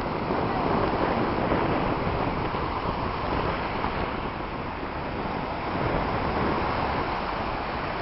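Atlantic Ocean surf washing onto the beach, a steady rushing noise that swells a little about a second in and again later on, with wind rumbling on the microphone.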